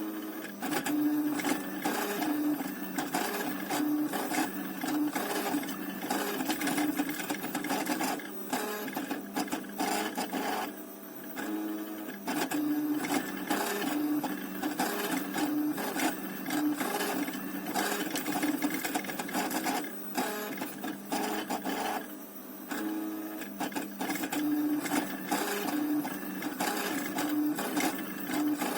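Stepper motors of a DIY 3D printer built from old CD-drive mechanisms, buzzing and whining in quick, uneven moves as the machine prints. The motion pauses briefly twice, about a third and two thirds of the way through.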